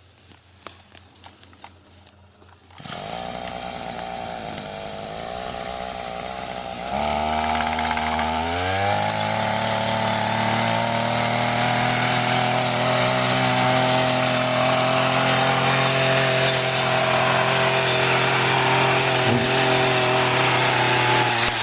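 Petrol brushcutter engine starting up about three seconds in and running at a low speed, then revving up between about seven and nine seconds in and holding a steady high speed as it cuts into brush. Faint rustling clicks come before it starts.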